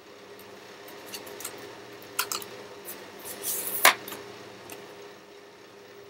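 Paper index cards being handled and swapped: a few light rustles and taps, with the loudest, a sharp click, about four seconds in, over a steady faint hum.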